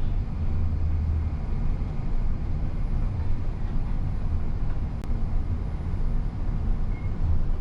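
Steady low running noise inside the cabin of the Incheon Airport maglev train while it is moving, with a faint click about five seconds in.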